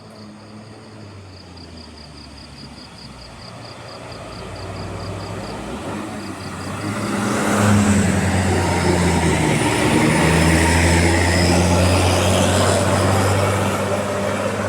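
Bus diesel engine pulling up a hill, growing steadily louder as it approaches from about four seconds in and staying loud as it passes. A faint, rapid, high ticking runs through the first five seconds.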